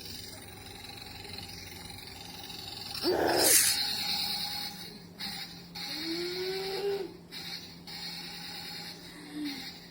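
Battery-powered toy military tank running, its small motor and plastic gears whirring with a steady high hiss. A loud voice-like cry comes about three seconds in, and shorter squeaky glides follow near the end.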